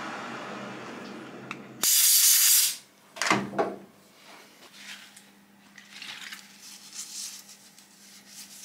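A steady whir for the first two seconds, then a short, loud spray hiss lasting under a second. After that come a couple of light knocks and the soft rubbing of a cloth wiping the metal fixture face in the lathe chuck.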